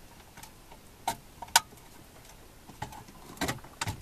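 Scattered plastic clicks and knocks from a car stereo head unit and its wiring plugs being handled and plugged in at the dash. One sharp click comes about a second and a half in, and a small cluster of knocks comes near the end.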